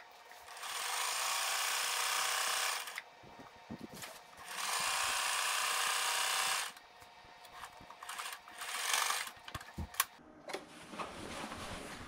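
Electric sewing machine stitching a seam through curtain fabric: the motor runs steadily twice, for about two seconds each time, with a short stop between. After that come a few clicks and handling noises as the fabric is moved.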